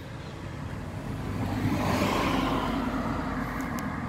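A motor vehicle passing by, its noise swelling to a peak about two seconds in and then slowly fading, over a steady low rumble of background traffic.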